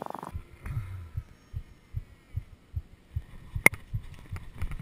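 The electric motor and propeller of an RC plane, heard from its onboard camera, cut off abruptly just after the start as the throttle is closed. After that come irregular low thumps about twice a second and a single sharp click near the end.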